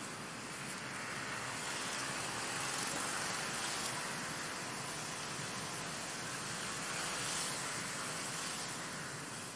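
Steady, even hiss of outdoor background noise, with no distinct calls or knocks standing out.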